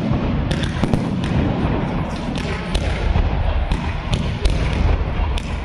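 Fireworks display: a rapid, irregular series of sharp bangs and pops from shells launching and bursting, over a continuous low rumble.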